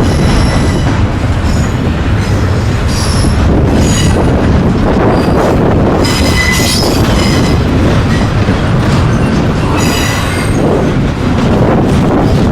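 Freight train cars rolling past with a loud, steady rumble, while the wheels squeal high-pitched several times in short spells as flanges grind against the rail.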